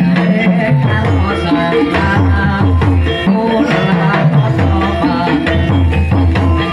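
Live music accompanying a kuda lumping (ebeg) and sintren performance: hand drums striking a steady rhythm under many short pitched notes from the ensemble.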